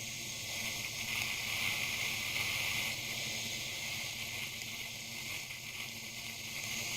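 Steady hiss of wind and rain on a POV camera riding a Bajaj Pulsar NS200, with the bike's 199.5 cc single-cylinder engine humming faintly underneath.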